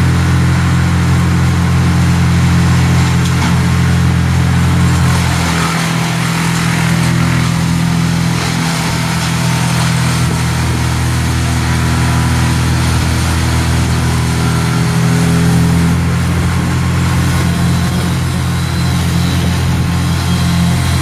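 A large engine running steadily with a low drone. Its lowest part drops away for several seconds in the middle, then returns.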